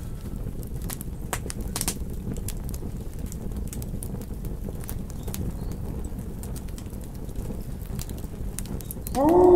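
Campfire crackling: scattered sharp pops over a low steady rumble. Near the end a wolf howl starts, its pitch rising and then holding.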